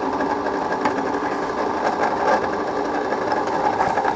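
Bell & Howell Autoload 255A 8mm film projector running with no film loaded, its motor and cooling fan giving a steady mechanical whir.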